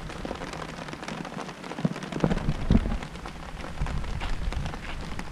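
Rain falling steadily, many individual drops ticking, with a few louder taps a couple of seconds in.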